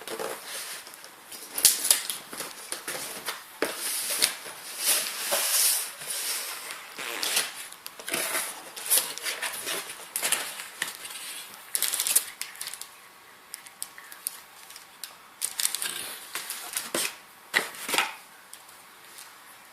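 Boxed packaging being handled and opened: irregular rustles, taps and clicks of cardboard and plastic, thinning out about two-thirds of the way through.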